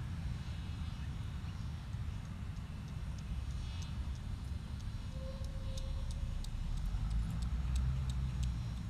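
Low rumble of distant road traffic, with a vehicle's engine drone growing a little louder near the end and a few faint scattered clicks in the middle.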